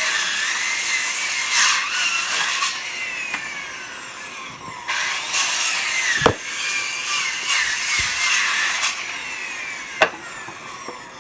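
A saw cutting through wood in two runs of about four seconds each, starting and stopping abruptly, with a wavering whine. A sharp knock comes about six seconds in and another near the end.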